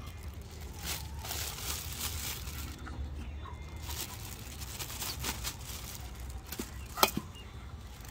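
Rustling and tearing in several irregular bursts, with one sharp click about seven seconds in.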